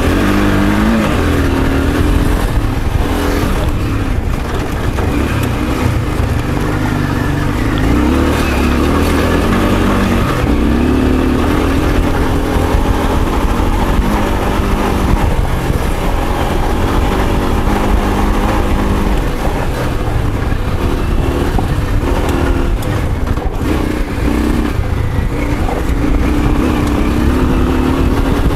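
Honda Africa Twin V-twin engine under load on a steep dirt climb, its revs rising and falling again and again with throttle and gear changes. The engine is running with an ignition fault that saps power and response, which the rider hopes is only worn spark plugs.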